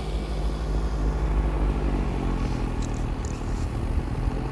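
Snow blower engine running steadily with a low hum while it sucks up snow and throws it out in a spray.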